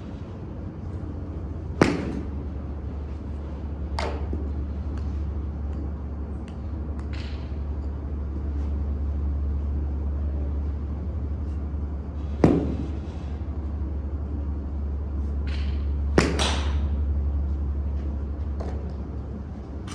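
Golf iron striking range balls off a hitting mat: sharp cracks, three loud ones and one fainter, the last a quick double. A steady low hum runs underneath.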